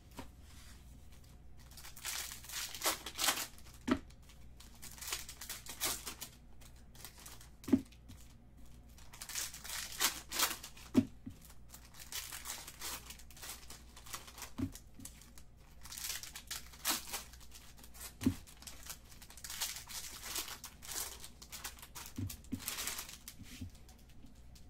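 Bowman's Best trading-card pack wrappers being torn open and crinkled in several separate bursts, with a few short, light knocks in between.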